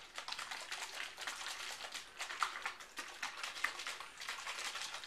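Capped plastic soda bottle nearly full of sugar water and ginger being shaken by hand: liquid sloshing inside with a dense patter of small clicks from the plastic, as the sugar is mixed in to dissolve.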